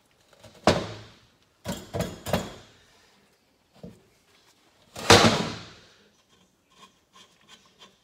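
Aluminium engine crankcase half being knocked and shifted on a workbench: five sharp clanks with short decaying tails, a quick run of three coming a second after the first and the loudest about five seconds in, then light clicking of small parts near the end.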